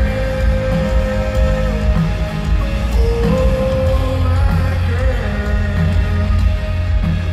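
Live band playing an instrumental break through an arena sound system, without vocals: a held lead line that bends in pitch over a heavy, steady low end.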